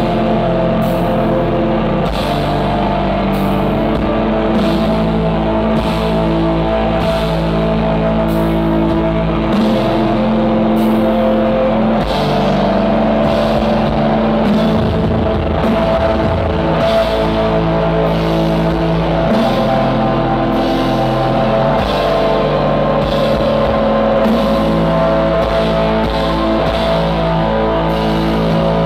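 Black metal band playing live and loud: distorted guitars hold droning chords that shift every few seconds over bass and drums, with a cymbal struck a little more often than once a second.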